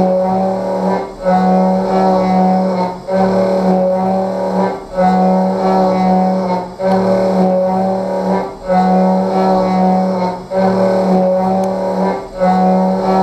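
5-flute high-feed end mill on a CNC machining centre cutting a metal profile: a steady pitched hum set by the flutes striking the metal, dropping out briefly about every two seconds.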